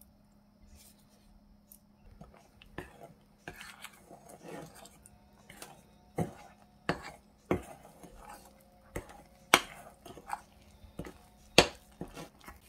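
A utensil scraping and knocking against a glass mixing bowl as vital wheat gluten is stirred into thick blended tofu batter. It is mostly soft scraping and squelching, with several sharp clinks against the glass, the loudest near the end.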